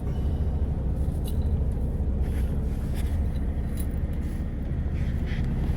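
Idling truck engine heard inside the cab: a steady low rumble.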